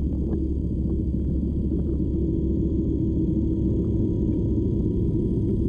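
Muffled, steady low rumble with a constant hum, heard through water as a small 1/16 six-wheel-drive RC truck with electric motors drives along the riverbed underwater.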